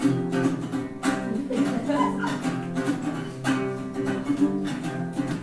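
Acoustic guitar strumming chords, the lead-in to a song before the singing starts.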